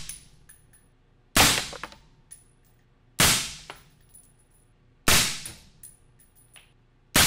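Suppressed 6.5 Creedmoor rifle shots through an AB Suppressor Raptor 7.62 eight-stack flush-mount suppressor, metered at about 130 dB peak at mid-gun. There are four shots about two seconds apart, each a sharp crack that dies away within a second.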